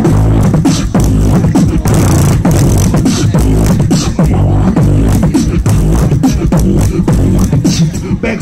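Solo beatboxing through a stage microphone and PA: a fast rhythmic beat of sharp mouth clicks and snares over a deep vocal bass line that slides in pitch.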